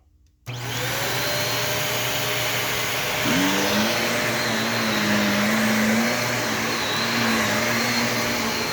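Shark Navigator DLX upright vacuum cleaner switched on about half a second in, its motor then running steadily with a loud whirring hiss. A lower hum rises in about three seconds in and wavers in pitch while it runs.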